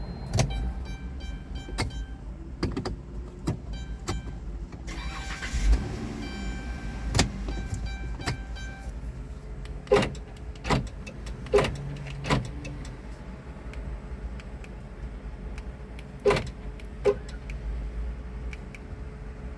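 A series of sharp clicks and clunks from a 2013 Chrysler Town & Country minivan, several in pairs under a second apart, over a low steady hum.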